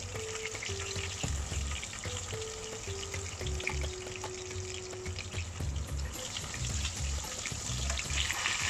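Eggplant slices sizzling and crackling as they fry in oil in a pan, with the sizzle growing louder near the end as zucchini slices are laid into the hot oil. Background music with a simple melody and a pulsing bass plays over it.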